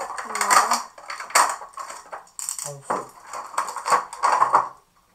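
Stiff clear plastic packaging tray crackling and clattering in rapid irregular bursts as an action figure is worked free of it by hand; it stops shortly before the end.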